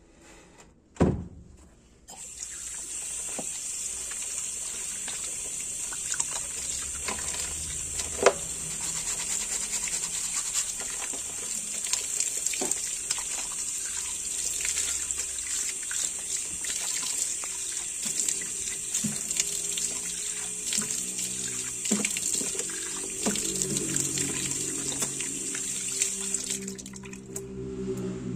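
A sharp knock, then a tap turned on about two seconds in: water runs hard from the faucet into a black laundry sink, splashing over hands and across the sink as the soap suds are rinsed away. The water cuts off near the end.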